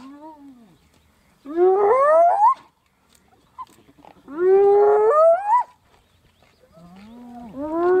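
Spotted hyenas calling: three loud calls, each about a second long and rising in pitch in steps, a few seconds apart, with a faint falling call just after the start.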